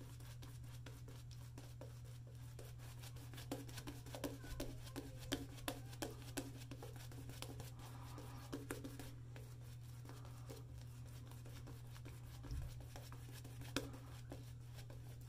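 Two-band badger shaving brush scrubbing lather onto the face, a faint run of quick scratchy brush strokes that are busiest in the middle stretch.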